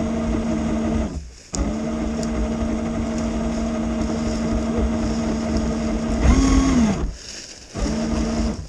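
Electric motor of an RC truck running steadily with a hum, cutting out briefly twice; a little after six seconds its pitch rises and falls once, as with a blip of the throttle.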